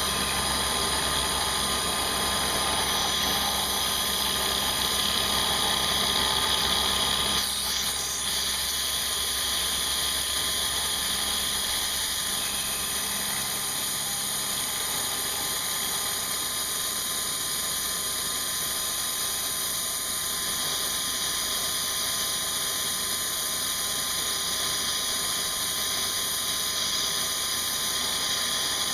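CNC milling machine running steadily, several high whines over a dense mechanical noise. The sound shifts briefly about eight seconds in, and a low hum drops out around twelve seconds in.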